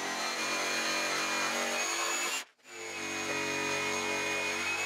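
Ridgid cordless jigsaw sawing through the end of a thick Honeylocust slab, its motor running steadily as the blade cuts. The sound drops out for a moment about two and a half seconds in, then carries on.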